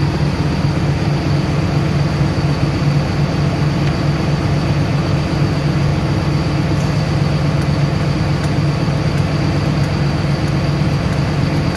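Steady machine drone with a low hum and a faint high whine, unchanging throughout.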